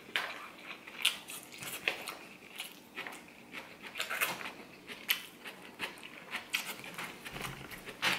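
Eating sounds: a metal fork scraping and clicking against an aluminium foil tray of rice, with chewing, as a series of irregular crisp clicks.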